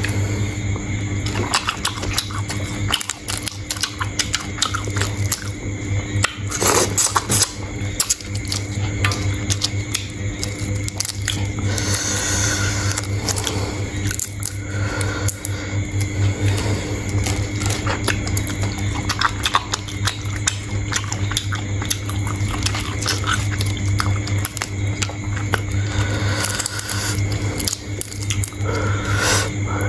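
A person eating sea shrimp: shells cracking and crunching, and chewing, in many small clicks and crackles over a steady low hum.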